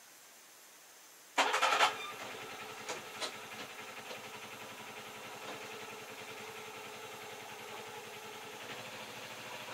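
An engine starts about a second and a half in, with a brief loud burst as it catches, then settles into steady running, with a couple of light knocks soon after.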